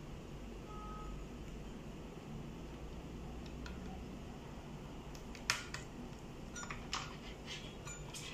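Several sharp plastic clicks as wiring-harness connectors are handled and pushed into the sockets on the back of a car navigation head unit, the first and loudest about five and a half seconds in, over a low steady hum.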